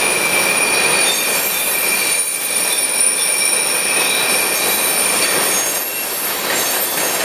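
Steel wheels of railroad tank cars squealing against the rails as they round a tight curve: several steady high-pitched screeches at once over the rolling noise of the cars.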